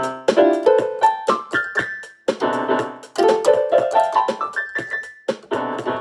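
Piano-toned keyboard playing an instrumental riff: two runs of notes climbing step by step, the second higher, then a chord near the end.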